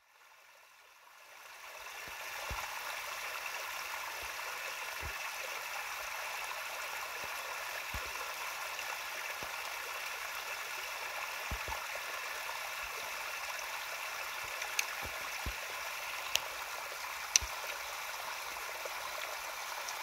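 Small mountain stream running over rocks into a pool: a steady rush of water that fades in over the first couple of seconds, with a few sharp plinks near the end.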